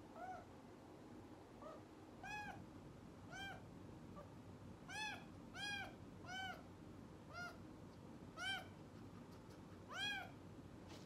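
Young kitten meowing repeatedly: about nine short, high meows, each rising and then falling in pitch, a second or so apart.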